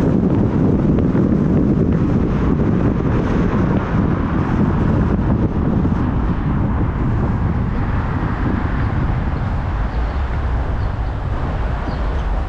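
Wind buffeting the microphone over a steady vehicle rumble.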